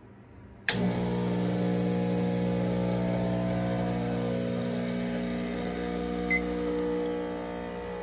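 Rancilio Silvia espresso machine's vibratory pump switching on with a click under a second in, then humming steadily as the shot is pulled. A short beep about six seconds in.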